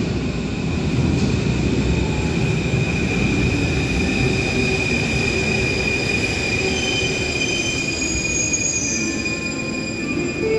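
MF01 Paris Métro train running in along the platform: a steady, loud rumble of steel wheels on the rails under a high, steady whine. More high tones join in during the second half as the train slows to a stop at the station.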